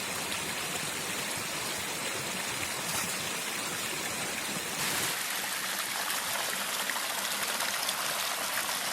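Running water, a steady even rush, a little louder from about five seconds in.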